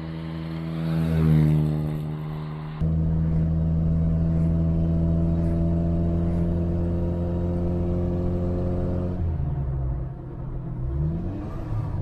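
A 1950 Simca 8's 1200 cc four-cylinder engine. The car drives up and passes close by, loudest about a second in. Then, heard inside the cabin, the engine runs at a steady cruising drone; its revs drop about nine seconds in and climb again near the end.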